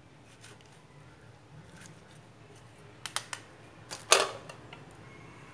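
Kitchen utensils being handled at a wooden cutting board: three light clicks about three seconds in, then a louder knock a second later.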